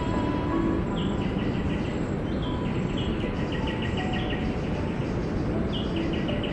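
Outdoor nature ambience: a steady rushing background with short, rapid chirping trills that recur every second or two.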